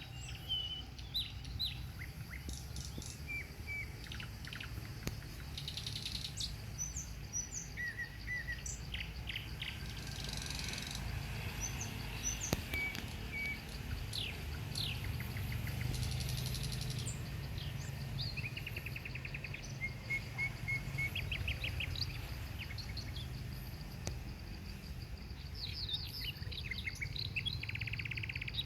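Several birds chirping and calling in short notes and trills throughout, over a steady low rumble.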